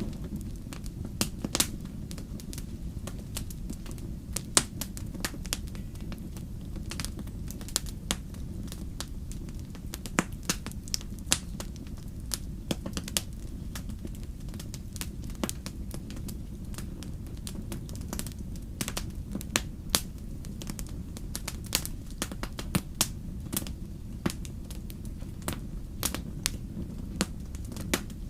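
Wood campfire crackling, with sharp pops and snaps at irregular moments, several a second at times, over a steady low rumble.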